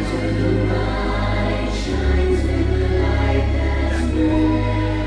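Pre-show music with a choir singing over long held low bass notes.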